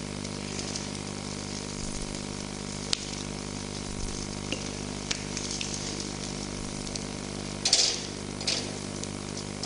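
Basted milkfish sizzling and crackling as it grills over glowing embers, a steady hiss with scattered sharp pops. Two louder bursts of crackling come near the end.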